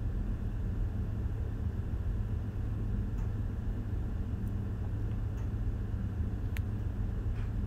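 Steady low drone of engine-room machinery, with the running incinerator's draft fan among it, plus a few faint clicks.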